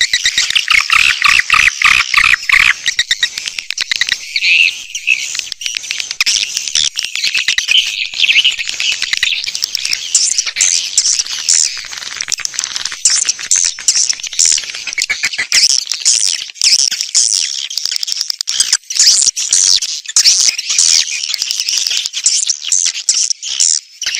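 Swiftlet lure recording: a dense, continuous chorus of rapid chirps and twitters from many swiftlets, played to draw swiftlets in to nest. Over the first few seconds the chirping sits lower; after that it moves mostly into a higher twitter.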